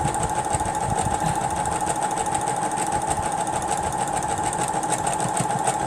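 Electric sewing machine running steadily at a fast, even stitching speed, with a steady hum and a rapid regular needle rhythm.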